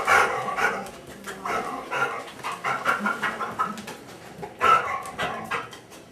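A dog panting with audible stridor on its breaths, an uneven string of noisy breaths with a few louder than the rest: the stridor of laryngeal paralysis.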